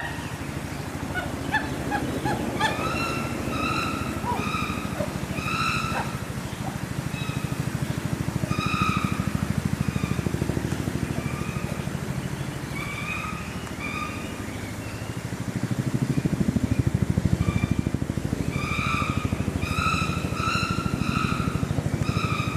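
Short honking animal calls repeated in runs of several through most of the stretch, over a steady low rumble.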